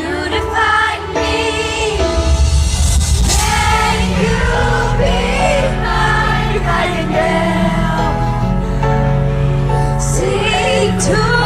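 A pop ballad being sung over a backing track, the voice holding long notes with a wavering vibrato above sustained low accompaniment.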